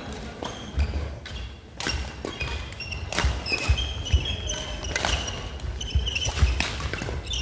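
Badminton doubles rally in a sports hall: repeated sharp racket hits on the shuttlecock, footsteps thudding on the sprung wooden floor and short high squeaks of court shoes.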